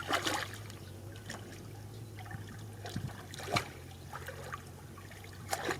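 Shallow water splashing and dribbling in a few short bursts, about four times, over a steady low hum.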